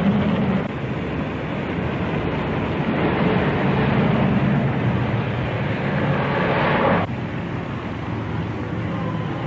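A steady, engine-like mechanical rumble that slowly grows louder, then cuts off sharply about seven seconds in, leaving a quieter rumble of the same kind.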